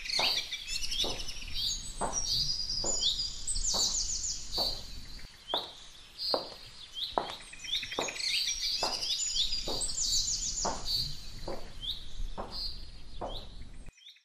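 Bird chirps and twitters over a steady clicking beat of about one and a half clicks a second, forming a pattern that repeats every seven seconds or so, like a looped soundtrack. It cuts off abruptly just before the end.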